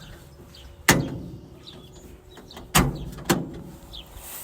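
Three sharp clunks, one about a second in and two in quick succession near three seconds in, with faint bird chirps between them.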